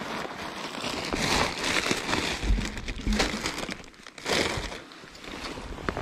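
Plastic carrier bag crinkling and rustling in irregular bursts as a landing net is pulled free of it, with a few low handling bumps.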